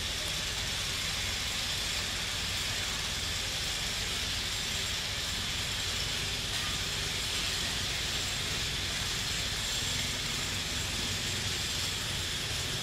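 Steady outdoor background noise: a continuous high-pitched hiss over a low rumble, unchanging throughout, with no distinct calls or knocks standing out.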